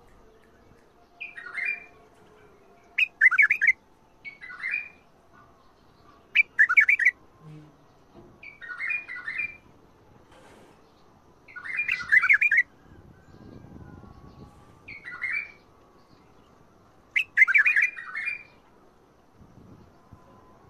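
White-eared bulbul singing: about eight short warbled phrases, each under a second long, with pauses of one to three seconds between them.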